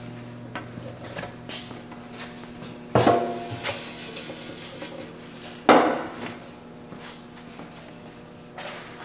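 Sheet-steel collection bin of a disintegrator being handled and set down: two loud metal clanks about three seconds apart, each ringing briefly, among lighter knocks and scrapes.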